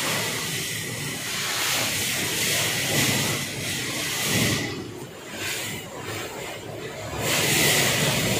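Cyclone wind and heavy rain rushing through trees, surging in gusts: strong in the first half, easing, then rising again near the end, with a low wind buffet on the microphone about four seconds in.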